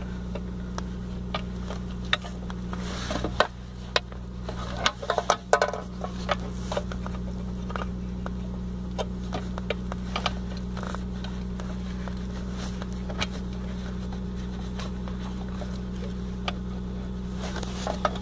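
Scattered clicks and knocks of wiring connectors and plastic parts being handled and plugged into the ABS/VSC computer under a car's dash, heaviest between about two and seven seconds in, over a steady low hum.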